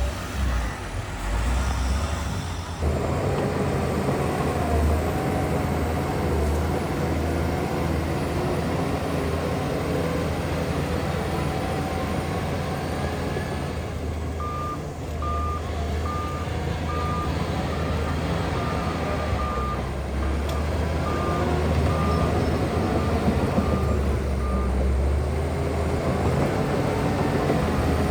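Heavy diesel construction machinery, dump truck and bulldozer, running steadily, louder from about three seconds in. Through the middle a reversing alarm beeps at an even pace, a little faster than once a second, for about ten seconds, as a machine backs up.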